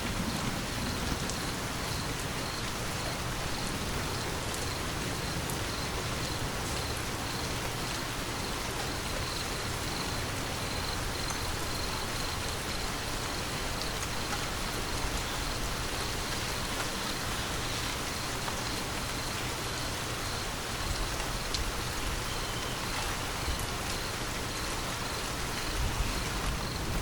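Steady rain falling on a surface, with scattered drop ticks. A low thunder rumble trails off about a second in, and a louder one begins near the end.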